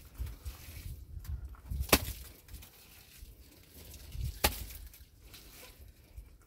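Lumps of wet mud slapped by hand onto a stone wall, two sharp slaps about two and a half seconds apart, with softer scraping between them as more mud is scooped up from the ground.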